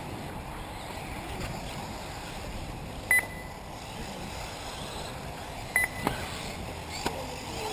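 Two short, high electronic beeps about two and a half seconds apart over a steady rush of wind. At an RC car race track, such beeps typically come from the lap-timing system as a car's transponder crosses the timing loop.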